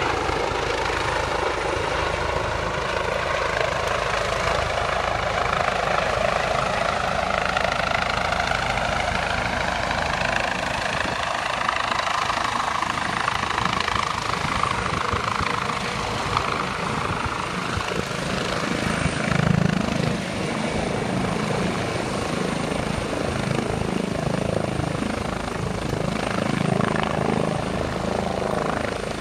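Helicopter coming in to land: its rotor and engine run steadily as it descends and hovers low. The whine slides a little lower in pitch over the first several seconds, then holds.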